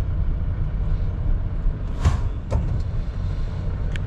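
Mercedes-Benz Atego 1024 truck's diesel engine running with a steady low rumble as the truck creeps forward, heard from inside the cab. About two seconds in there is a brief hiss, and a few sharp clicks follow.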